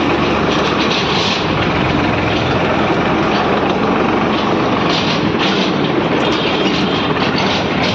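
Farm tractor's diesel engine running steadily under way, heard close from the driver's seat, with a constant rattling clatter from the machine.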